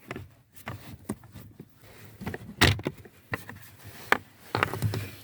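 Plastic trim cover being unclipped and pulled away from under a car's dashboard: irregular plastic clicks and knocks, the sharpest about two and a half seconds in and again about four seconds in, with a short clatter near the end.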